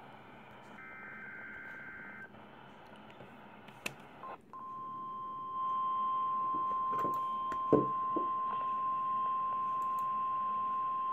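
NOAA Weather Radio broadcast: the end of the warbling SAME digital header bursts, then after a short gap the single steady 1050 Hz warning alarm tone starts about four seconds in and holds. A thump sounds partway through, over radio hiss.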